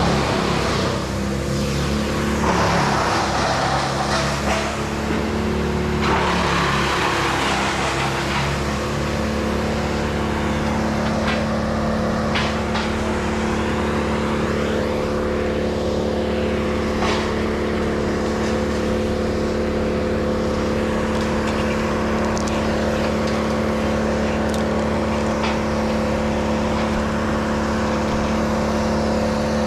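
An engine running, its speed shifting over the first several seconds and then holding steady, with a few faint sharp ticks later on.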